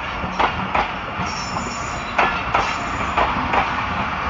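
Passenger coaches rolling slowly past on arrival, their wheels clicking over rail joints in pairs, with a brief high squeal about a second and a half in.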